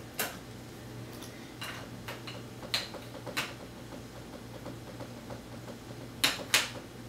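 Sharp clicks and taps of plastic alphabet toy pieces being handled, several scattered and two loud ones close together near the end, over a steady low hum.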